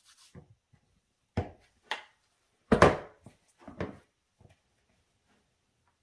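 Hands working sticky, floured bread dough in a mixing bowl: a handful of short, dull knocks and rubs of hands and dough against the bowl, the loudest about three seconds in.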